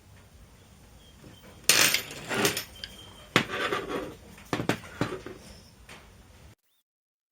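Hard objects being handled on a workbench: a series of sharp metallic clinks and knocks, with short rattles between them. The sound cuts off abruptly near the end.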